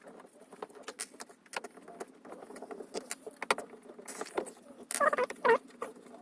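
Fast-forwarded clicking and tinkling of a screwdriver backing screws out of a metal home theatre cabinet, as rapid irregular ticks. Short chirping sounds come about five seconds in.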